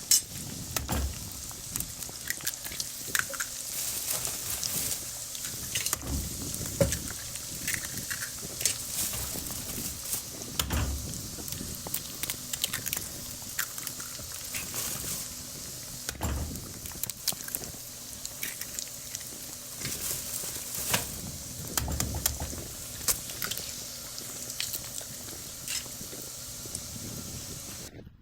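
Eggs frying in a hot pan: a steady sizzle with dense crackling pops of spattering fat, and a brief low thump about every five seconds. It cuts off abruptly near the end.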